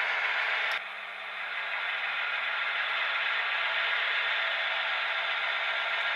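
Steady steam hiss from a model steam locomotive's sound decoder, with a faint low hum under it. A click comes just under a second in, where the hiss drops and then builds back up.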